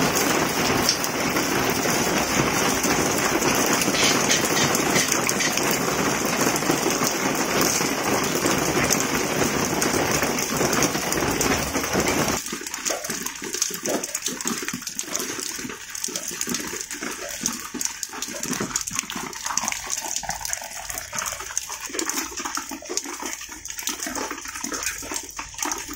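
Steady rain falling, with wind. About halfway through, the low rushing part cuts off suddenly, leaving a thinner hiss of rain with scattered drip ticks.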